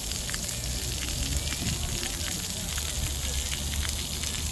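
Splash-pad ground jets spraying water with a steady hiss.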